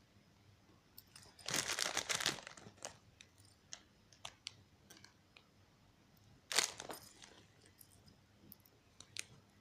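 Plastic packaging crinkling in two short spells, about a second and a half in and again past halfway, with scattered light clicks and taps between as small plastic decorations are handled.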